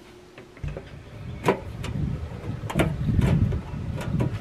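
Plastic access cover of an RV water heater compartment being fitted back on, with several sharp clicks and snaps as it is handled and latched, over a low rumble.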